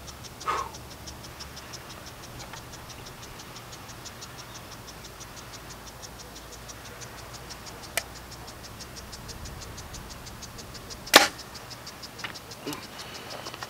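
Compound bow being shot: one sharp, loud snap of the string and limbs on release near the end, with a fainter sharp click about three seconds earlier. A steady fast ticking, about six a second, runs underneath.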